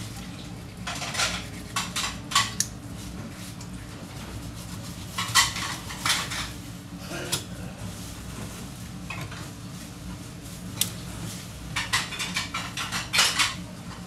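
A long sashimi knife scraping along a plastic cutting board as it is pushed in zigzag strokes between a flounder fillet's skin and flesh to strip the skin, in irregular bursts of scraping and rasping.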